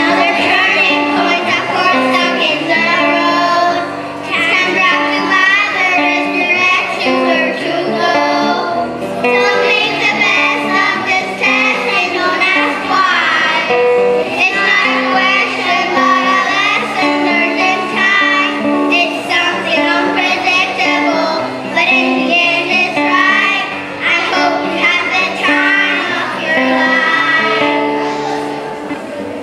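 A group of children singing a song together, over an instrumental accompaniment of held low notes.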